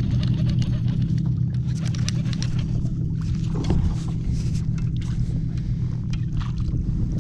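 Choppy lake water slapping against the hull of a plastic sit-on-top fishing kayak under a steady low rumble of wind, with scattered light splashes and clicks.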